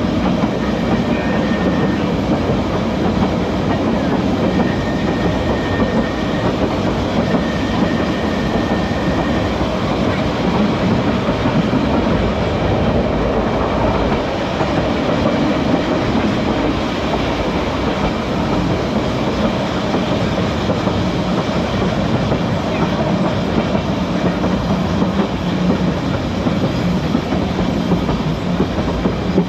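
Manx Electric Railway tram running along the track, a steady rumble heard from on board. A faint high whine comes and goes during the first ten seconds.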